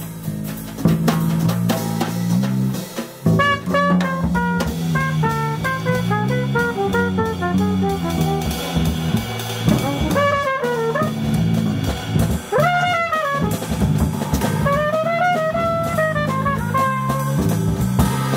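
Small jazz group playing live: a cornet enters with the melody about three and a half seconds in, playing phrases with a few notes that swoop up and fall back, over a steady bass line and a drum kit with cymbals.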